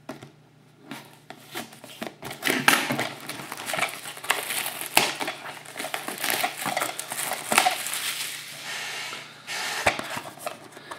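Clear plastic shrink wrap being torn and peeled off a sealed trading-card box, with irregular crinkling and crackling that starts about a second in.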